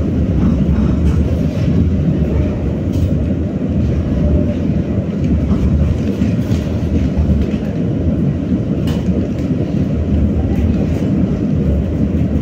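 BKM-60102 tram running along its rails: a steady rumble of wheels and running gear, with a few sharp clicks, the clearest about three seconds in and again near nine seconds.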